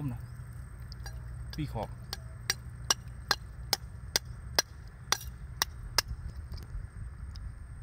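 A rusty steel rebar striking oyster shells clustered on a rock, a run of about nine sharp clinking strikes at two to three a second, starting about two seconds in: knocking the oysters loose and open.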